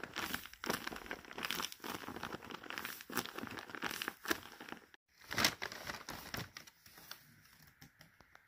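Paper squishy wrapped in clear packing tape crinkling and crackling as a hand squeezes it again and again. After a brief break about halfway, there is more crinkling of plastic and paper, which fades to quiet near the end.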